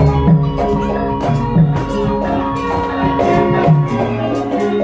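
Javanese gamelan music: ringing metallophone notes layered over a steady beat of drum strokes.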